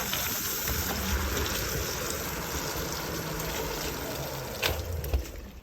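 Electric skateboard's wheels rolling through a puddle on wet pavement, water hissing and spraying off the tyres with a low rumble underneath. Two sharp knocks near the end.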